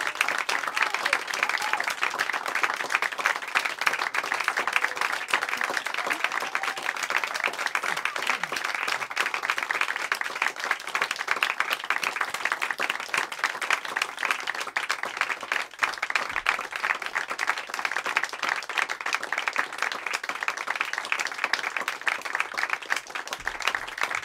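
Audience applauding, many hands clapping in a steady, unbroken stream.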